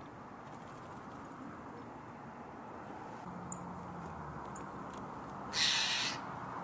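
A brief flutter of small bird wings, about half a second long, as a dark-eyed junco lands on the fence rail, over steady low background noise. A couple of faint ticks come a second or two before it.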